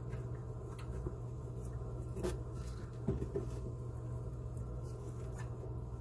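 A few light clicks and taps from hands and tools working on sink plumbing, the sharpest about two seconds in and another about three seconds in, over a steady low hum.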